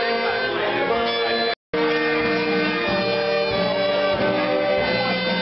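Live band music carried by saxophones and clarinets playing held notes together. The sound cuts out completely for an instant about a second and a half in.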